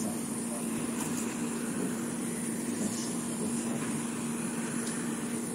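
Hot-air gun running steadily, its fan blowing with a low hum and a faint high whine, heating a phone's back cover to loosen the adhesive.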